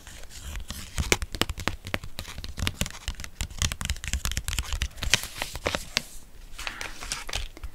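Long fingernails tapping and scratching on a foil sheet-mask sachet, with the packet crinkling: a quick, irregular run of clicks and rustles.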